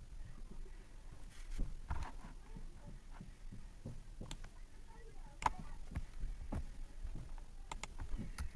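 Faint, irregular computer keyboard and mouse clicks, a few sharp taps in the second half, mixed with dull low thumps of handling on the desk near the microphone.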